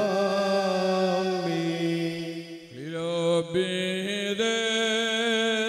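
A man chanting a liturgical hymn in long held notes, with a short break about halfway through.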